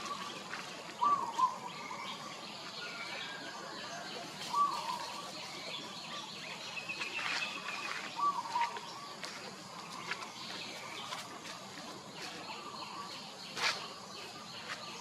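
Short chirping animal calls, a few seconds apart, over steady outdoor ambience, with a few faint ticks.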